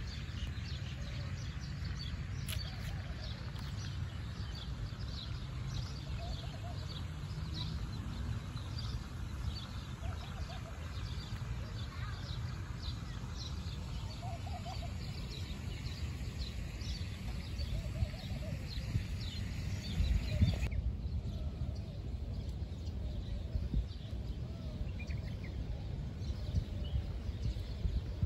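Small birds chirping busily in quick, high, repeated notes, with a lower call recurring every couple of seconds, over a steady low outdoor rumble.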